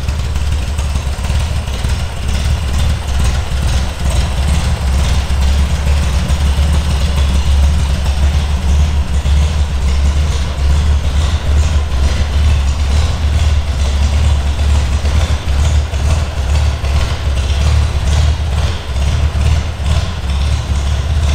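Triumph Spitfire 4 Mk1's 1147 cc four-cylinder engine idling steadily.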